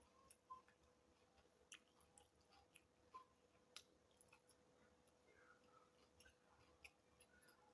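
Faint chewing: scattered mouth clicks and smacks, a few every second, over a faint steady hum.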